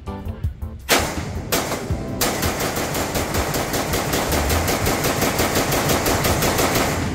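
AR-15-style rifle fired at an indoor range: a couple of single shots about a second in, then a fast, continuous string of rapid fire from about two seconds in.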